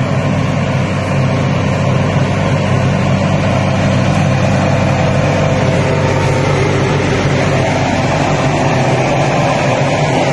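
Solis 27 hp compact diesel tractor engine running steadily at an even speed.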